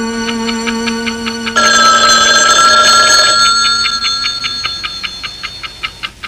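Desk telephone ringing: a loud bell ring with a rapid trill starts about a second and a half in and dies away, and a second ring starts right at the end. Held music notes sound under the start of the first ring and fade out.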